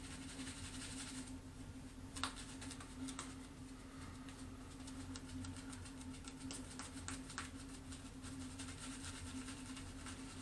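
Badger shaving brush working Barbasol shaving cream into a lather: faint scratchy swishing with many small crackles, over a steady low hum.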